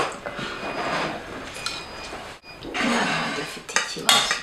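A drink poured from a plastic flask into a drinking glass in two pours, with light clinks of cutlery and dishes.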